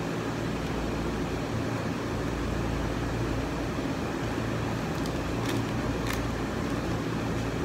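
Steady low machine hum of air conditioning, with a few faint clicks about five to six seconds in as the condenser microphone and its shock mount are handled.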